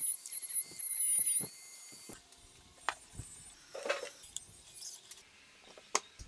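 Compact trim router running at full speed while routing a slot in plywood: a loud high whine that wavers slightly, cutting off abruptly about two seconds in. After it come light handling clicks, a short scrape and a sharp click as bolts and wooden clamp parts are fitted.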